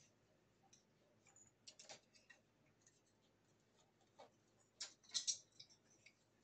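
Faint, scattered light clicks and rustles of small Christmas decorations being handled and set in place, with a short louder cluster about five seconds in.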